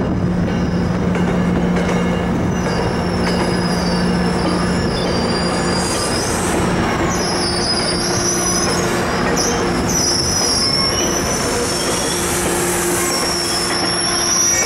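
Metrolink bilevel passenger cars rolling past on the rails, with their wheels squealing in a wavering high pitch from about three seconds in. A steady low hum is under the first half and fades out.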